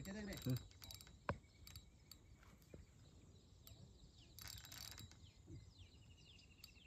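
Faint mechanical clicking from a fishing reel, with a short rustle about four and a half seconds in.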